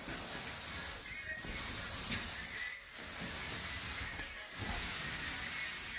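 Paint roller on an extension pole rolling across a ceiling: a steady hiss with a brief dip about every second and a half as each stroke changes direction.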